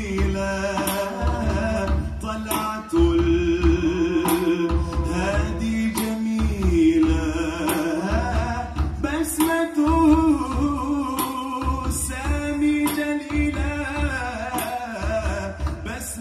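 A choir of men and children singing together to a steady drum beat.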